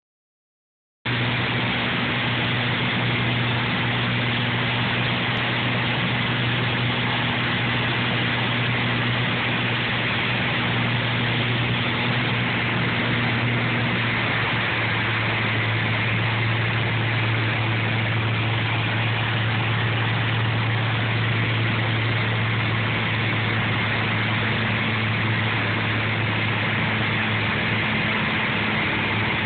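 Engine and propeller of a single-engine light aircraft, heard from inside the cockpit, running as a steady drone with a low hum, starting about a second in. The hum shifts slightly in pitch about halfway through.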